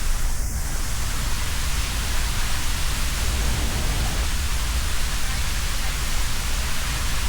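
Waterfall close by: a loud, steady rush of falling water with a deep low rumble, unchanging throughout.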